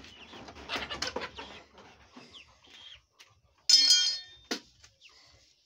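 A domestic chicken gives one loud squawk a little past the middle, after two faint short chirps. A short clatter of small hard knocks comes in the first second and a half.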